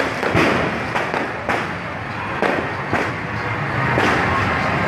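Fireworks going off: several sharp bangs about a second apart over a continuous din of street noise.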